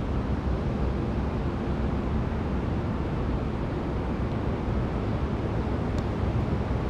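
Wind buffeting the microphone: a steady low rumbling noise. A faint click about six seconds in.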